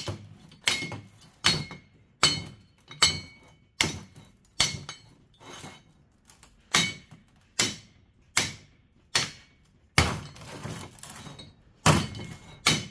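Hammer blows on metal, about one every 0.8 seconds with a short ring after each, driving a stuck part through a fan motor being stripped for scrap. There is a longer scrape about ten seconds in.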